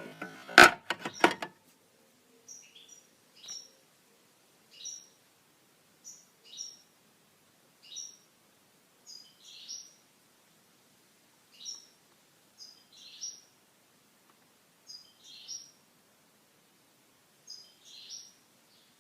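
A few sharp clicks and knocks, then a small bird calling a short high chirp over and over, about once every second and a half.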